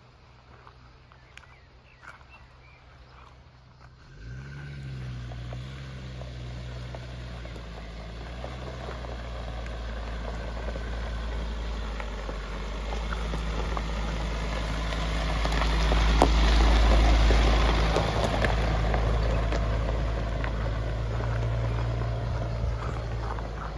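Jeep Grand Cherokee WJ engine running at low speed with its tyres crunching on gravel. The sound comes in abruptly about four seconds in and grows louder as the vehicle approaches and passes, then slowly fades as it drives away.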